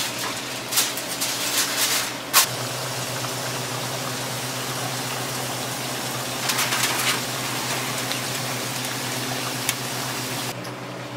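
Ground beef and diced potatoes frying and simmering in pans on a stove, a steady hiss with a low hum under it. In the first couple of seconds aluminium foil crinkles and there is a sharp click, and a short flurry of crackling comes about six and a half seconds in.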